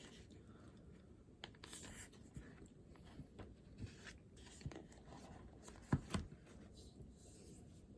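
Faint writing on paper: light scratching pen strokes and small taps, with a louder pair of knocks about six seconds in.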